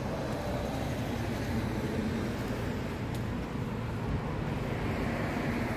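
Steady road traffic noise, the low hum of cars on a nearby street.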